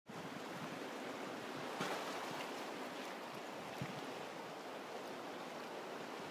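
Steady wash of surf over a rocky shoreline at low tide, swelling briefly about two seconds in, with a soft low knock near four seconds.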